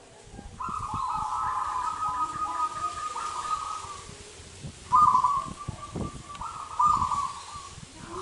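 Local zebra dove (perkutut) cooing: two phrases of rapid rolling coos, the first about three and a half seconds long, the second about three seconds long after a short pause.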